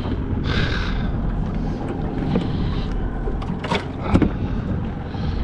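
A boat's motor idling in a steady low rumble, with a short rushing noise about half a second in and a few sharp knocks around four seconds in.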